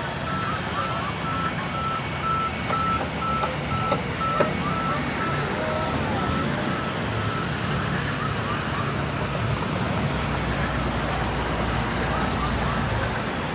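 Band sawmill running and cutting through a wooden plank: a steady motor hum under the saw's noise. A repeated high electronic beep sounds over it for about the first half.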